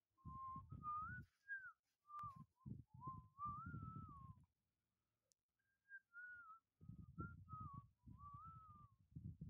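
A person whistling a wavering tune in short phrases, faint, with a low rumble under the notes.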